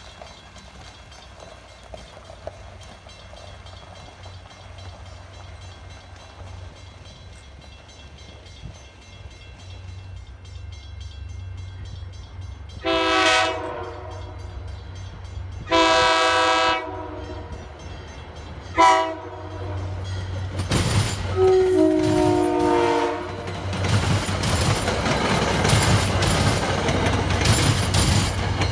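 MBTA commuter train horn sounding the grade-crossing signal, long, long, short, long, the last blast lower in pitch. Then the bi-level coaches roll past with rising wheel noise and rail clatter.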